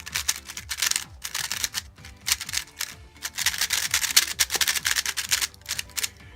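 A 3x3 speedcube being turned quickly by hand: a dense, uneven run of plastic clicks and clacks as the layers snap round.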